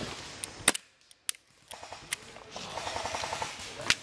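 Airsoft gunfire. There are a couple of sharp single shots, then a brief hush, then a rapid rattling burst of automatic fire near the end, followed by one loud sharp crack.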